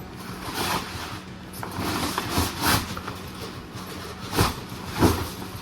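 Rolled canvas swag being pushed into a canvas swag bag: canvas rustling and scraping, with two sharp knocks near the end.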